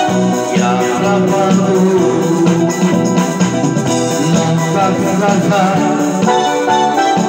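Electronic keyboard playing an instrumental passage: an organ-like lead melody over a repeating backing accompaniment.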